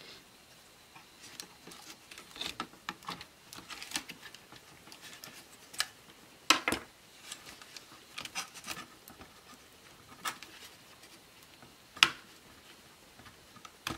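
Laptop parts being handled during disassembly: scattered light plastic clicks, taps and scraping, with two sharper clicks about six and a half and twelve seconds in.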